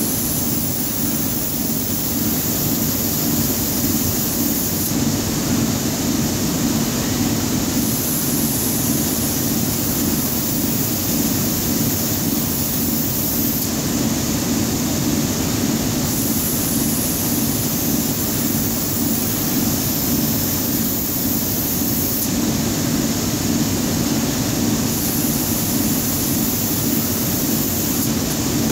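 Steady machinery noise: an unbroken whir with a strong low hum.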